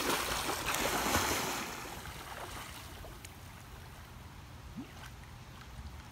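A person running through shallow pond water, splashing loudly for about the first second and a half, then quieter water sounds as he swims out under the surface.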